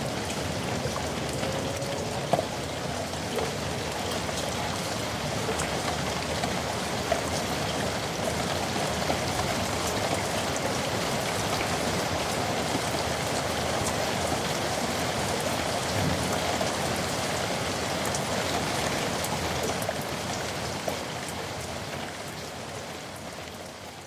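Heavy rain falling steadily in a yard, an even hiss with scattered louder drip ticks and splashes; it starts to fade out near the end.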